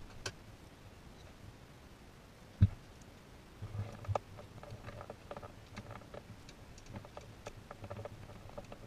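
Hand tools and metal parts clicking and knocking while someone works in a car's engine bay. There is one heavy knock about two and a half seconds in, then a run of light, irregular clicks and ticks.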